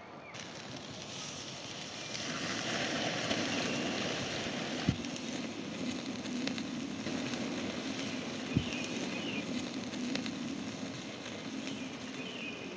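Wood campfire burning with a steady crackle, which grows louder about two seconds in, and two sharp pops at about five and eight and a half seconds.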